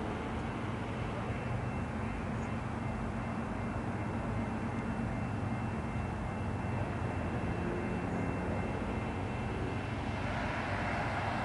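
Steady low drone of approaching diesel locomotive engines in the distance, growing a little louder near the end.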